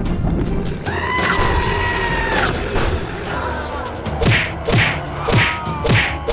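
Sound effects dubbed over background music. A held, bending tone lasts about a second and a half. It is followed by a run of five quick thuds, each dropping in pitch, about two a second.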